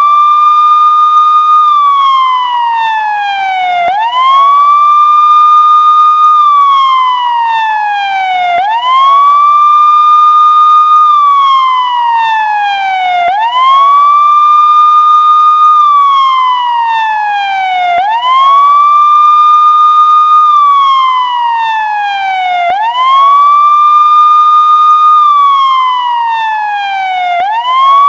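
Police siren sounding a slow wail: the pitch climbs quickly, holds for about two seconds, then slides back down, over and over about every five seconds.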